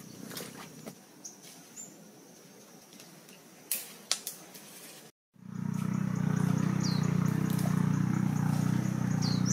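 Short high bird chirps and a few light clicks over quiet outdoor ambience, then, after a brief dropout about five seconds in, a steady low drone takes over and is the loudest sound, with two quick falling chirps above it.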